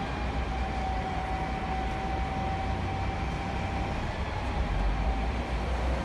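Storm wind rumbling and buffeting on the microphone, with a steady high tone held through most of it.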